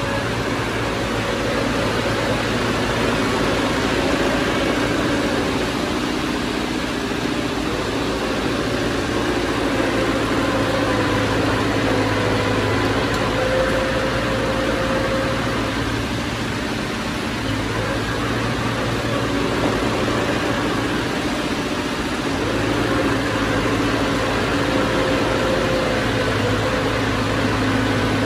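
Diesel engine of heavy earthmoving machinery running steadily, its pitch drifting slightly up and down over a steady mechanical noise.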